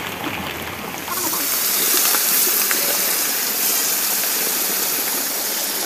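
Rain falling steadily, then about a second in a louder, brighter hissing sizzle takes over: hot oil frying in a kadai over the open fire of a clay stove.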